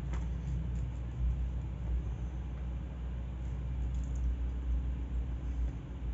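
Low, steady background rumble with no clear events on top of it.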